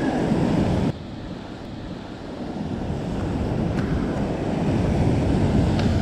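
Ocean surf breaking and washing over a sandstone rock ledge, with wind buffeting the microphone. The sound drops suddenly about a second in, then builds again as the next wave surges in.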